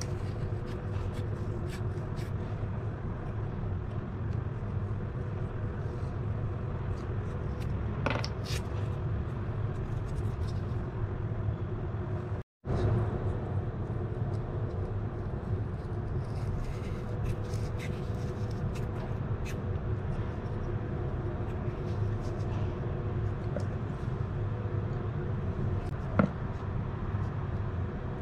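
Steady low background rumble, with a few faint clicks and knocks of PVC pipe pieces being handled on a wooden workbench.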